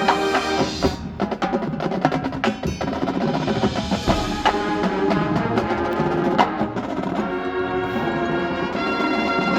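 Marching band music in a percussion-led passage: mallet instruments and chimes play over snare and drum rolls with sharp wood-block-like strikes, and sustained chords sound near the end.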